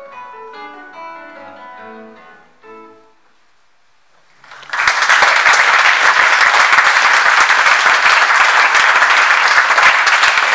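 Classical guitar plays the closing notes of a piece, ending about three seconds in. After a moment of quiet the audience starts applauding, loud and steady, much louder than the guitar.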